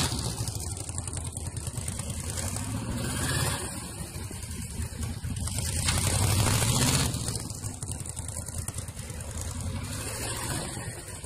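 Yamaha V-Max's 1,200 cc V4 motorcycle engine running at low speed, opened up briefly about three seconds in and again, louder and longer, around six seconds in, then easing back.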